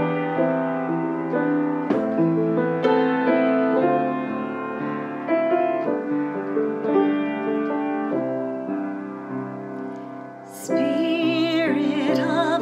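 Slow piano music, one held note or chord after another; about eleven seconds in, a singing voice with a wide vibrato comes in over the piano.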